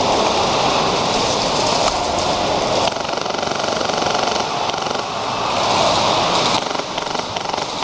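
Airsoft guns firing on full auto in a continuous rapid rattle. The fire eases a little about three seconds in and largely stops about six and a half seconds in.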